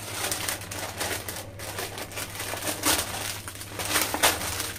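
Plastic snack packets crinkling and rustling as small packets are pulled out of a large plastic-wrapped pack, with sharper crackles about three and four seconds in.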